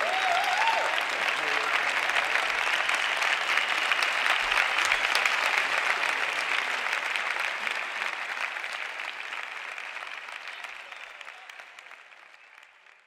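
Audience applauding a concert band, a dense steady clapping that fades away over the last five seconds.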